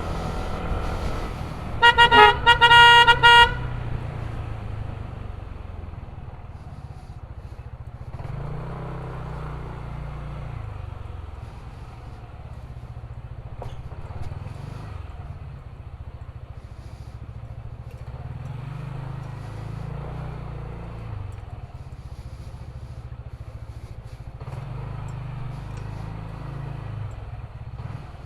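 A vehicle horn sounds in a quick string of short toots about two seconds in, the loudest thing here. Under it a motor scooter engine runs on, its pitch rising and falling as it speeds up and slows.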